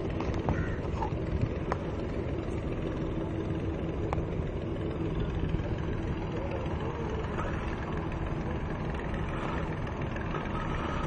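Ship's engine running with a steady low rumble and a faint hum, with a few light clicks over it.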